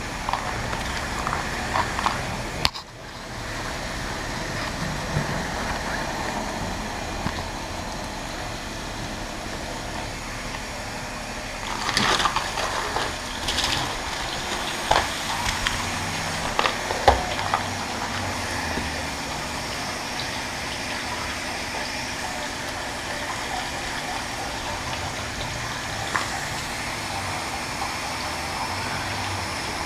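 Pressure-washer spray hitting a road bicycle, a steady hiss of water with a brief break about three seconds in and a few knocks and clatters near the middle.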